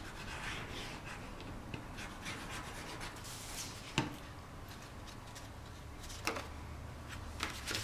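Cardstock being handled, rubbing and sliding over paper and the cutting mat, with a sharp tick about four seconds in and a softer knock a little after six.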